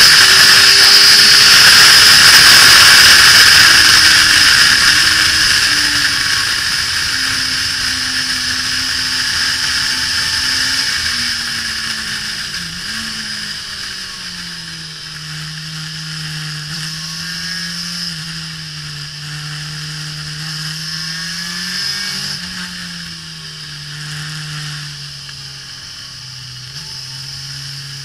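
2005 Suzuki GSX-R1000 (K5) inline-four sport-bike engine heard from an onboard camera, with heavy wind rush on the microphone at first. The engine note falls and the wind eases as the bike slows, then the engine runs at lower revs that rise and fall a little.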